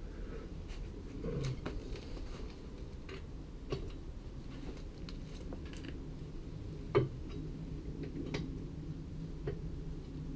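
Scattered light clicks and knocks of tools at work on the van's wheel as its wheel nuts are cracked loose, with one louder knock about seven seconds in, over a low steady hum.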